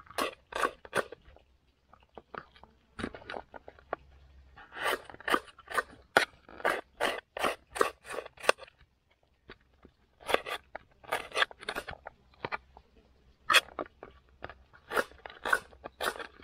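Chef's knife chopping onion and garlic on a plate, in runs of quick cuts about three a second with short pauses between.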